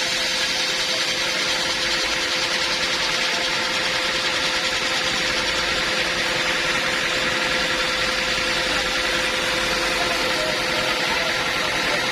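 Band sawmill running with a steady, unbroken machine noise and a constant hum.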